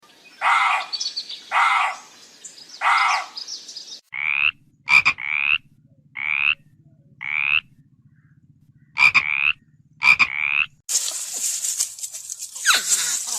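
Frogs calling: three short raspy croaks, then a run of short, rising chirp-like calls with a few sharp clicks among them. About three seconds before the end a different recording cuts in, with hiss and falling whistles.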